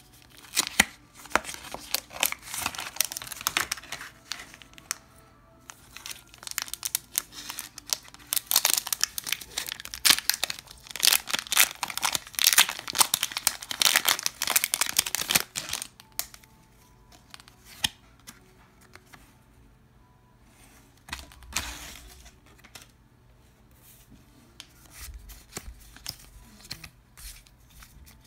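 A Pokémon TCG booster pack's foil wrapper being torn open and crinkled, in dense crackling bursts for the first fifteen seconds or so, with a short pause about four seconds in. After that come only scattered soft clicks and rustles as the trading cards are handled and leafed through.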